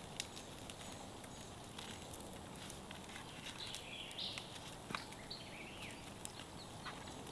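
Faint light taps and rattles of a seasoning shaker being shaken over meat, scattered through a quiet outdoor background, with a couple of faint high chirps a little past the middle.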